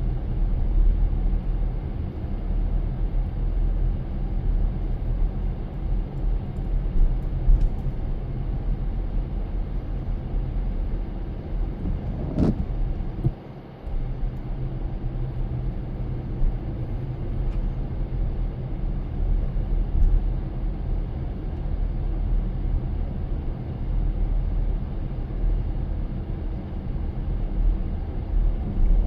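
Steady low rumble of a car being driven, heard from inside, with a short dip in the noise about halfway through.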